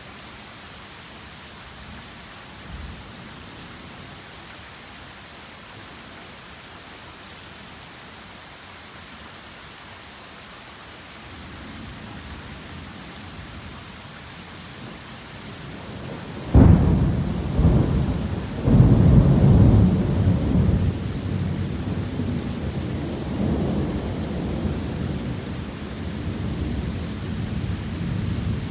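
Heavy rain falling steadily, then about sixteen and a half seconds in a sudden loud crack of thunder, a second surge about two seconds later, and long rolling rumbles that carry on over the rain.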